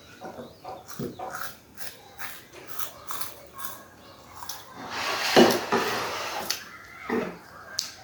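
Close-up eating sounds: chewing and mouth smacking heard as a run of small wet clicks, with a louder, noisier stretch about five seconds in.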